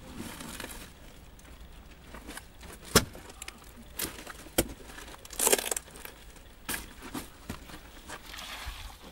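Lumps of charcoal clinking and knocking against each other and a sack rustling as charcoal is unloaded from a kiln, with a sharp knock about three seconds in and a short, louder rush of noise about halfway through.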